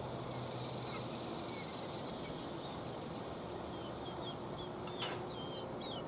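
Rural outdoor ambience: small birds chirping in quick short notes from about halfway through, over a faint steady high buzz of insects, with a single sharp click about five seconds in.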